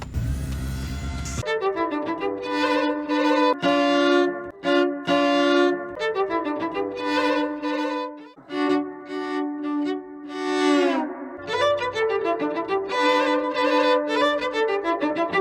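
Solo cello bowing a melody with long pitch slides up and down, played as an imitation of a taxi's sounds. It comes in after a short low rumble at the start.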